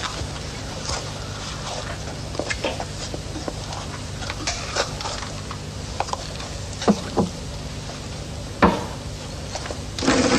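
Steady low hum and hiss with scattered light clicks and knocks, the sharpest about three-quarters of the way through. A louder, fuller noise starts just before the end.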